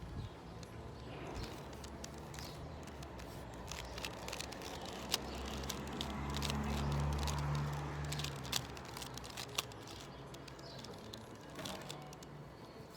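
Rubik's cube layers being turned by hand, with irregular plastic clicks and clacks. A low rumble swells and fades in the middle.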